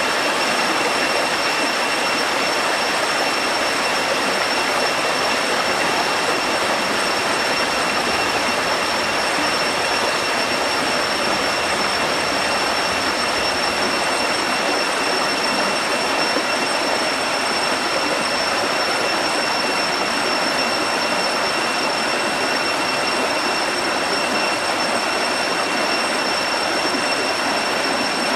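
Waterfall roaring in a steady, unbroken rush, with a thin, steady high-pitched whine held above it throughout.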